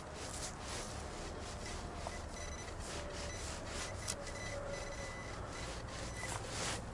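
Repeated scratchy rubbing and scraping, short strokes one after another.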